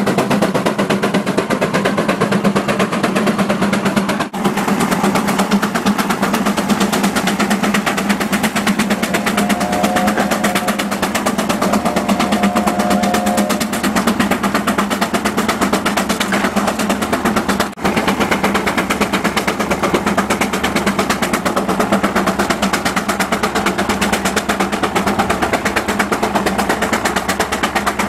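Old farm tractor's engine working hard under a plow load, its exhaust a rapid, steady popping over a low drone.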